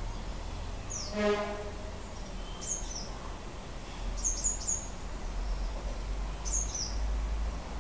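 Wild birds calling: one short, harsh, buzzy call about a second in, the loudest sound, and repeated high, thin chirps, each a quick pair of falling notes, over a low steady background rumble.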